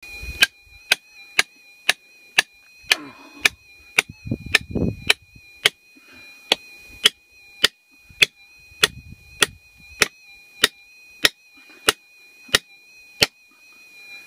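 Hand sledge hammer striking a steel chisel bar driven into bedrock, a steady run of sharp metal-on-metal blows about twice a second, breaking up the rock.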